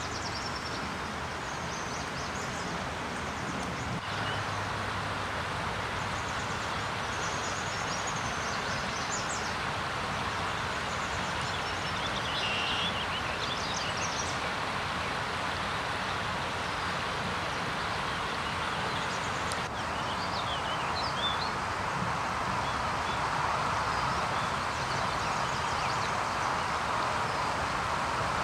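Outdoor ambience: a steady rushing background noise, with faint bird chirps now and then, clustered around a few moments.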